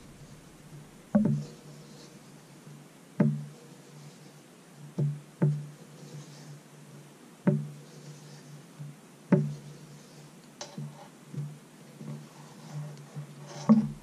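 Knife blade being drawn along a leather strop loaded with compound, with a sharp tap each time the blade is set down on the strop board, about every one to two seconds, over a faint steady low hum.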